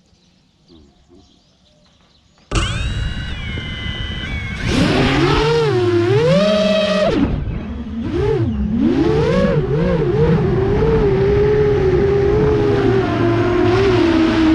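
FPV quadcopter motors whining, their pitch swooping up and down with the throttle and then holding steadier. The sound cuts in suddenly about two and a half seconds in, after a quieter stretch.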